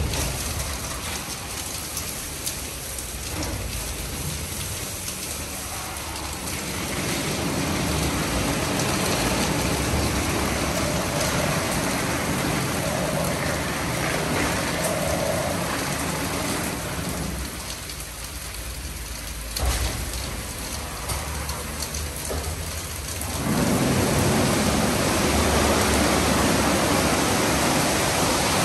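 Istobal M9+ rollover car wash rubbing its rotating brushes over the car to work in the sealant, with water and brush strands drumming on the body in a dense, rain-like hiss. The noise drops for a moment a little past the middle and comes back louder near the end as the gantry moves along.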